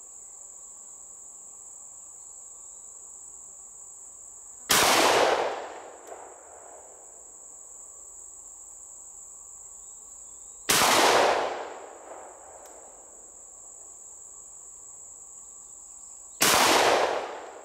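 Franchi SPAS-12 12-gauge shotgun, set to semi-automatic, fired three times about six seconds apart, each shot a sharp bang that rings out for about a second. A steady high-pitched insect drone runs underneath.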